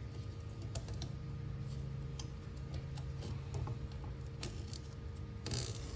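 Light, irregular ticks and clicks of a small razor knife trimming excess window-screen mesh along the rubber spline, over a steady low hum.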